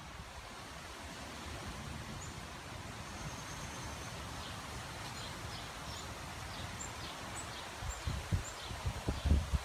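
Wind rustling through tree leaves as a steady hiss, with small birds giving short high chirps now and then. In the last second or two, gusts buffet the microphone with low rumbles.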